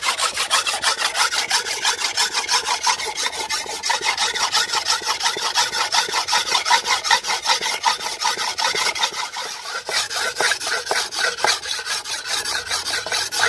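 A thick-edged steel knife blade being ground by hand on a wet brick, scraping back and forth at about five strokes a second in a steady rhythm. He presses hard and works it long to thin down the thick edge.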